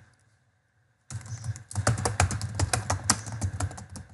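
Fast typing on a computer keyboard: a quick, irregular run of key clicks that starts about a second in.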